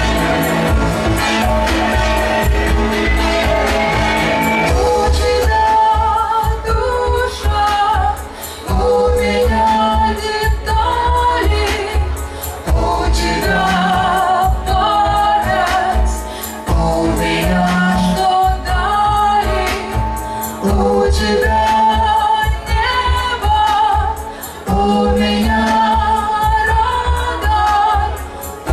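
Live synth-pop song played through a club PA: keyboards over a steady beat, with a woman's lead vocal coming in about five seconds in.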